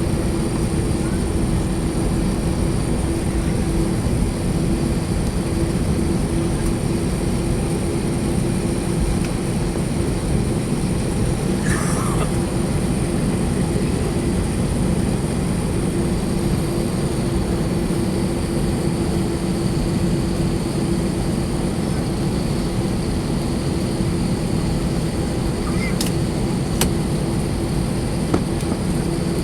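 Steady engine and airflow noise of an Airbus A321-231 with IAE V2500 turbofans, heard from inside the passenger cabin, with a steady low hum running under it.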